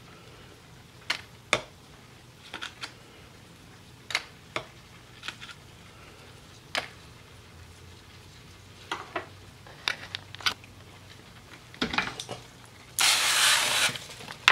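Scattered sharp clicks and taps over a low steady hum, then about a second of loud rustling near the end as the camera is handled.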